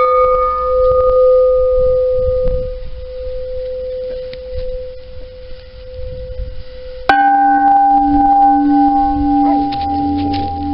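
Two bells made from old gas cylinders, each struck once with a baseball on a stick. The first rings with a clear, steady tone that slowly fades over about seven seconds. About seven seconds in, a second, lower-pitched cylinder is struck and rings on.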